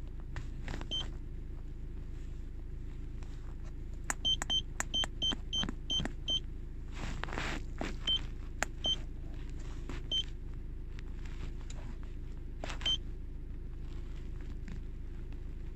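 Autel MaxiCheck handheld scan tool beeping at each key press: short, high, single-pitched beeps, a quick run of seven about four seconds in, then a few single ones. Faint button clicks sound over a steady low hum in the car.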